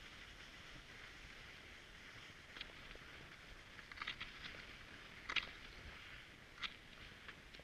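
Cross-country skis gliding over snow with a steady faint hiss, and a few short sharp clicks at irregular intervals.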